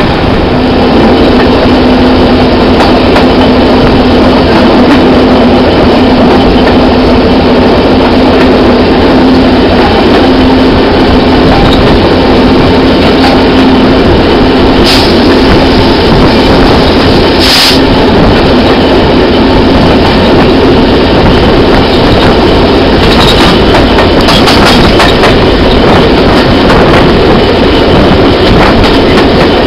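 Class 66 diesel locomotive's EMD two-stroke V12 working under power at the head of the train, heard from an open coach window together with the wheels running on the rails. Its steady drone fades toward the end, and two sharp clicks come a little past halfway.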